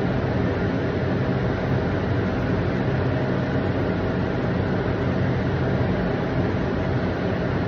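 Cooling fans of a stand-up red-light therapy booth running, a steady whir with a low hum underneath.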